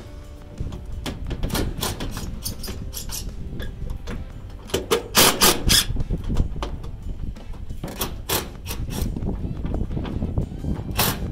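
Cordless impact driver hammering in short bursts as it drives the Allen-key set bolts that pinch a snow-stop clamp block onto a steel roof's standing seam; the strongest burst comes about five seconds in.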